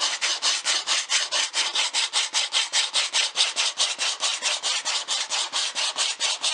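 Small hand rasp from a fill-stick repair kit scraped quickly back and forth over a hardened wax-and-epoxy fill on a mahogany surface, about six even strokes a second. It is shaving off the fill material standing above the surface to level the repair flush.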